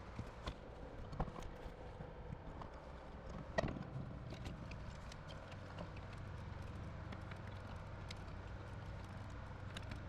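Scattered clicks and knocks of hands working on a GPU mining rig, fitting an ATX power supply and plugging in its cables. One louder knock comes about three and a half seconds in. A steady hum from running mining hardware sits underneath.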